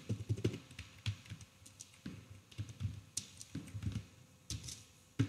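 Typing on a computer keyboard: a run of quick, irregular keystrokes, fairly faint.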